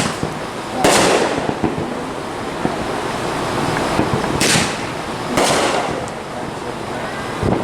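Fireworks going off: four sharp bangs, one at the start, one about a second in, and a close pair around four and a half and five and a half seconds, with steady crackling between them.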